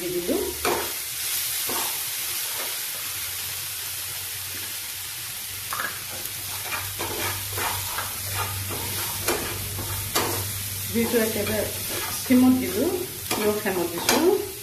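Food sizzling in a frying pan while a metal spatula stirs it, scraping and knocking against the pan many times.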